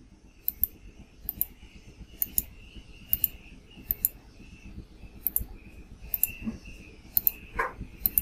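Computer mouse button clicking in quick press-and-release pairs, about once a second, while brush strokes are drawn on screen.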